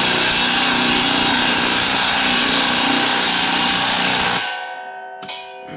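Cordless impact driver running loudly in a long burst on a bolt, cutting off about four and a half seconds in.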